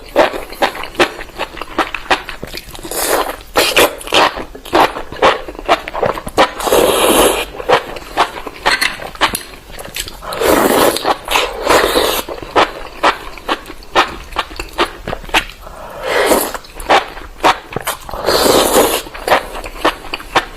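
Close-miked eating of spicy enoki mushrooms: wet chewing and mouth clicks, with a longer slurp every few seconds.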